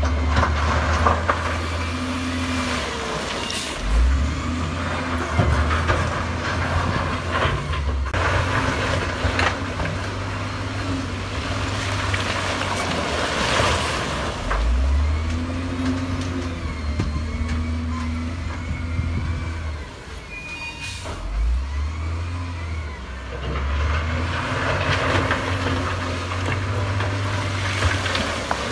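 Heavy diesel earthmoving machinery running under load, the engine pitch rising and falling several times as it revs, with stretches of rushing noise.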